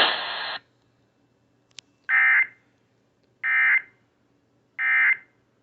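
Emergency Alert System end-of-message code: three identical short bursts of buzzy digital data tones, about 1.3 s apart, over an FM radio, marking the end of the alert. Before them, radio hiss cuts off about half a second in.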